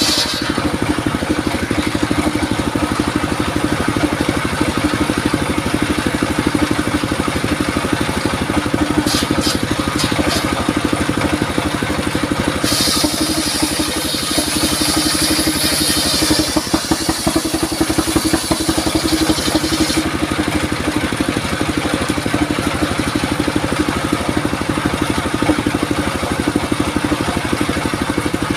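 Engine-driven circular saw running steadily, with a blade cut through durian wood for about seven seconds midway that adds a bright high hiss; a few sharp clicks come shortly before the cut.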